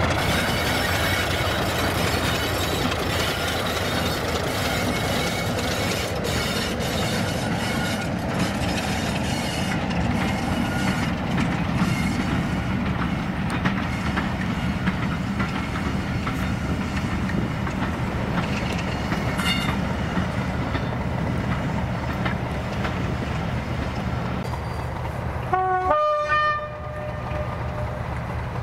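Diesel locomotive running with its train, its engine sounding steadily throughout. A short two-note horn blast sounds near the end.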